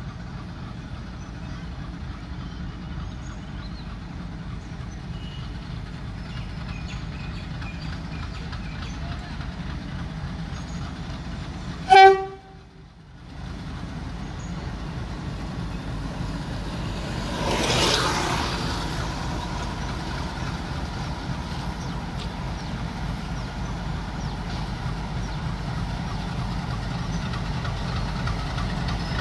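WDG4 diesel locomotive's engine running with a steady low rumble. Just under halfway through comes one short, loud horn blast, and about six seconds later a brief rushing hiss, after which the engine runs a little louder.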